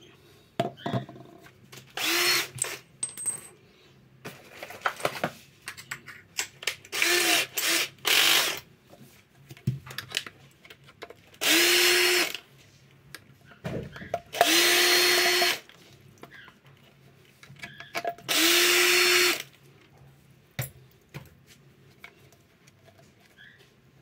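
Cordless screwdriver running in short bursts of about a second each, six times, backing out the screws that hold a washing machine's drain pump motor, with clicks and knocks of the plastic parts being handled in between.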